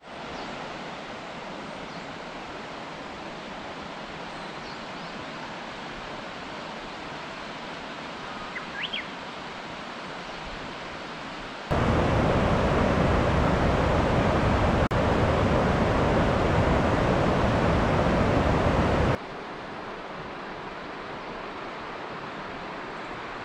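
Steady rushing noise of a mountain stream. It jumps abruptly louder for about seven seconds from just before the middle and drops back just as suddenly. A short high chirp comes about nine seconds in.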